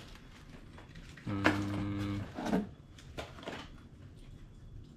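Plastic tackle packaging rustling and crinkling as items are pulled from a cardboard box. A steady low hum lasts about a second, starting just over a second in, and is the loudest sound.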